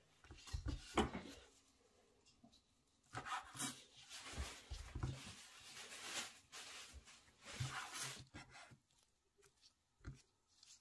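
Chef's knife slicing through a rolled dough log filled with chicken mince on a wooden cutting board: gloved hands rustle the roll into place, then a run of scraping cuts and light thuds as the blade meets the board, with one more thud near the end.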